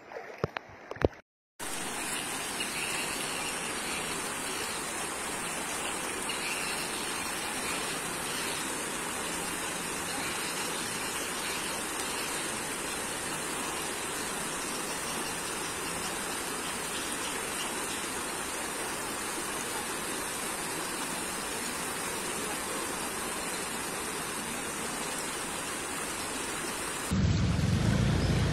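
Steady, even rushing noise of water. Near the end it gives way abruptly to a louder, deeper rumble.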